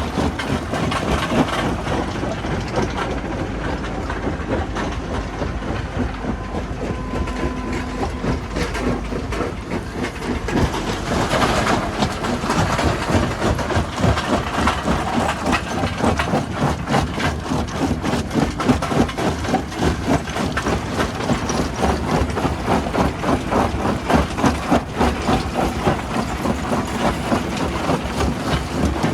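Heavy rock-handling machinery running, with a continuous dense clatter of irregular knocks over a steady low engine hum.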